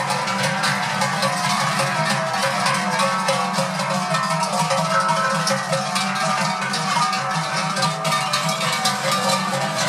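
Many cowbells hung on a herd of walking cows, clanging together in a continuous jangle.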